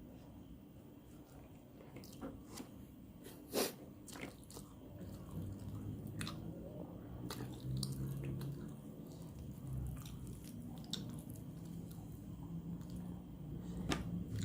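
Close-miked chewing and biting of nasi padang, with scattered sharp crunches, the loudest about three and a half seconds in, and a low hum building underneath from about five seconds in.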